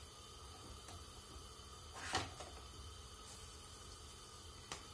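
Faint steady hiss with two soft knocks, one about two seconds in and a smaller one near the end.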